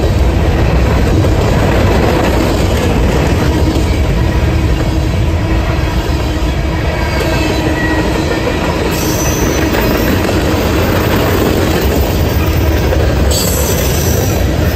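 Freight train's covered hopper and tank cars rolling past: a loud, steady noise of steel wheels on the rails, with brief high wheel squeals about nine seconds in and again near the end.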